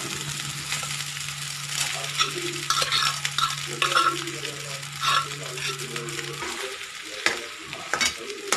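A steel spoon scraping and stirring cooked rice into an egg and masala mixture in a steel kadai, in repeated strokes with a few sharp clinks near the end. A low steady hum runs under it and stops about six and a half seconds in.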